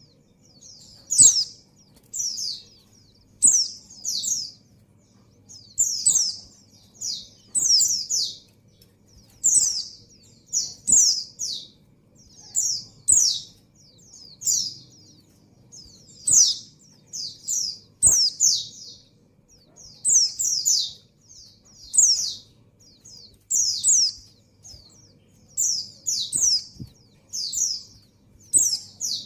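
Female white-eye (pleci) in breeding condition calling for a male: short, high chirps in quick clusters of two or three, repeated about every one to two seconds.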